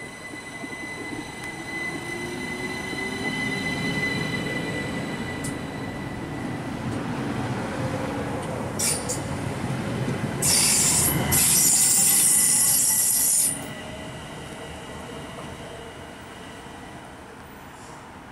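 ÖBB Talent electric multiple unit running along a station platform, its wheels squealing with steady high tones and a gliding motor whine over the rumble. A loud, even hiss cuts in about halfway and stops suddenly some three seconds later.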